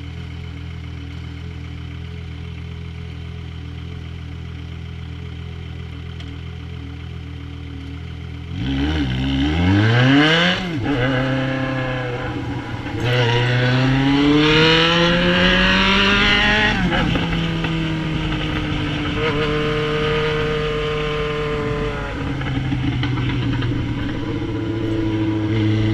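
Yamaha XJ6's inline-four engine, fitted with an Atalla 4-into-1 aftermarket exhaust, idling steadily. About eight seconds in it accelerates away. The note rises three times, each run cut off by a gear change, then settles into a steady cruise.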